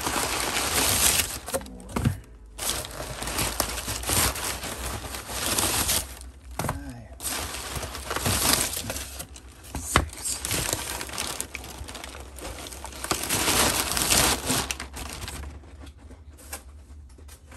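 Crumpled kraft packing paper rustling and crinkling in bursts as it is pulled out of a cardboard shipping box, with a sharp knock about ten seconds in.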